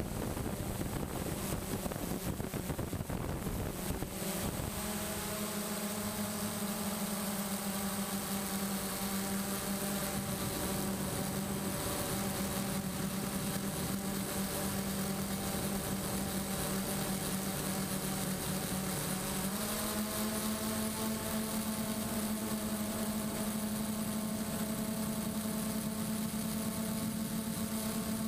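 DJI Phantom quadcopter's motors and propellers heard from its onboard camera. Wind noise rushes at first, then a steady hum of motor tones sets in about four seconds in and steps up slightly in pitch about two-thirds of the way through as the motors speed up.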